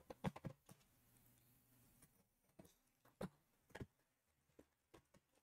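Faint, scattered light taps and clicks, about a dozen, from a cardboard trading-card hobby box being handled and opened.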